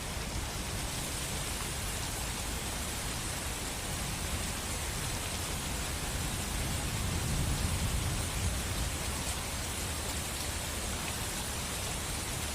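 Steady rain falling, an even hiss with no break. A low rumble swells and fades about seven to eight seconds in.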